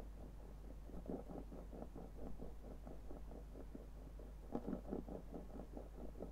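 A lens rocking on a hard surface, making a dense, uneven rattle of small clicks, several a second, with a louder cluster about four and a half seconds in. A steady low hum runs underneath.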